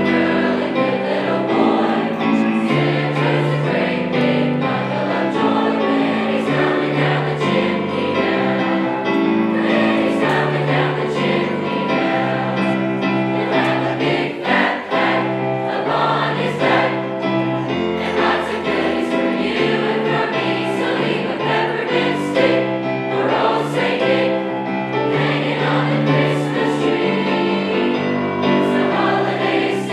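High school choir singing, several voice parts holding sustained notes together.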